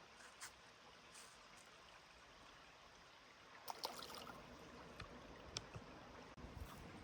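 Faint steady rush of running stream water. A few light clicks sound over it, with a brief cluster of crunchy clicks about halfway through and low rumbling near the end.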